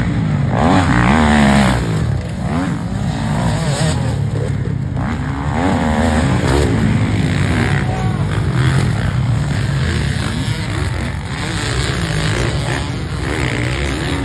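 Motocross bikes racing past on a dirt track, their engines revving up and down over and over as the riders accelerate, shift and jump.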